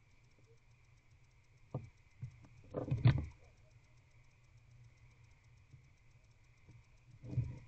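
Barn owl shuffling about on the floor of its wooden nest box: a single click, then a cluster of scuffs and knocks about three seconds in, and another short scuffle near the end, over a steady low hum.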